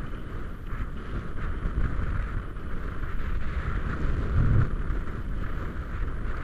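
Mountain bike descending a dirt singletrack: tyres rumbling and rattling over the rough trail, with wind on the camera's microphone, and a heavier jolt over a bump about four and a half seconds in.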